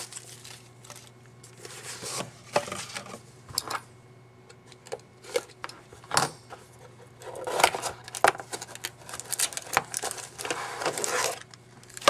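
Hands opening and handling a box and pack of trading cards: scattered cardboard clicks and taps, with two longer rustling stretches, one a little past halfway and one near the end.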